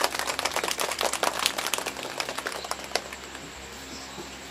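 Rapid, irregular clicking and crackling from hands handling the condenser microphone, its shock-mount holder and the stand while it is adjusted, thinning out after about three seconds.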